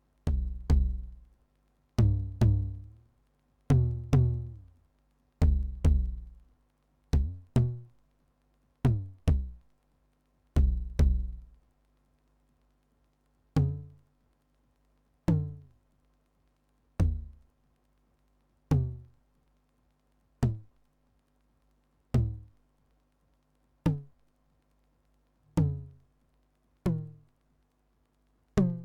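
TR-909 clone drum machine sounding one low, pitched drum voice over and over, each hit with a quick downward pitch sweep. The hits come about every 1.7 seconds: in the first half they ring longer and often come in pairs, and after about 13 seconds they are single, shorter hits.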